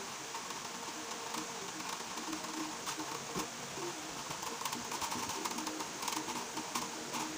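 Small plastic clicks and taps as a ring light is fitted and adjusted on a tripod's plastic mounting head, over faint background music.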